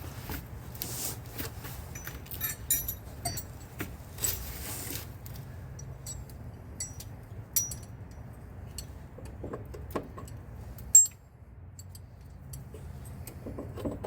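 Metal hand tools clinking and scraping against a rusted brake line fitting, in scattered sharp clinks with a louder knock about eleven seconds in.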